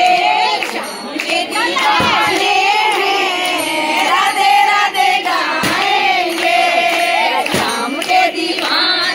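A crowd of women singing a Hindu devotional chant together, many voices loud and in unison.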